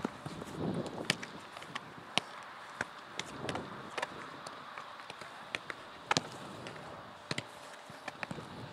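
Footballs being thrown and caught by gloved goalkeepers: sharp, irregular smacks of ball against goalkeeper gloves, roughly one every second.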